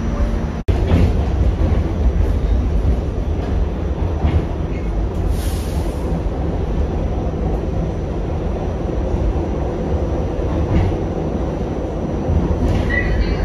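R46 subway car running along the track with a steady rumble of wheels on rail. There is a short hiss about five seconds in.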